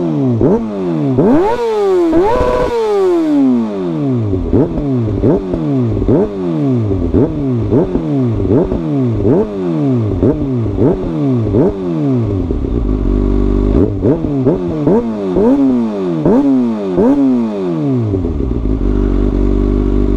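Kawasaki ZX-6R 636 inline-four engine revved hard in quick repeated throttle blips, about one a second, through an Arrow full exhaust system with its dB killer removed. One higher rev comes about two seconds in, and the engine drops back to a steady idle near the end.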